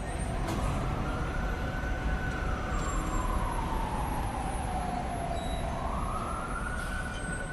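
Emergency-vehicle siren in a slow wail: the pitch rises, holds, falls over about five seconds and starts rising again near the end, over a steady low rumble.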